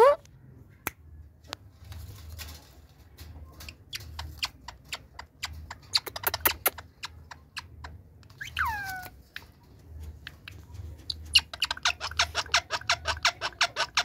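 Indian ringneck parakeets in a wire cage: scattered sharp clicks and taps on the cage wire, one falling squawk about eight and a half seconds in, then a fast run of short chattering calls, about six a second, near the end.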